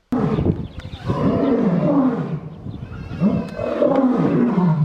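Recording of a lion roaring, played back from a downloaded video: two long roars that start abruptly.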